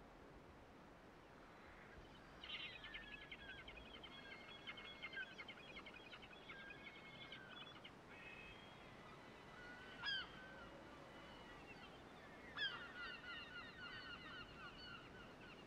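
Faint honking bird calls: one long bout a couple of seconds in, a brief sharp call near the middle, and a second bout near the end.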